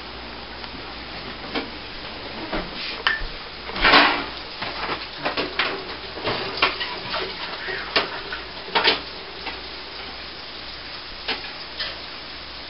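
A baking pan being handled and an oven door opened: scattered knocks and clatters, the loudest about four seconds in.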